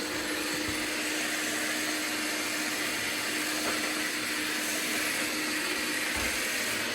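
A robot vacuum's self-emptying dock running its suction motor, a steady whooshing rush of air as it empties the robot's dustbin, with a faint hum that stops partway through.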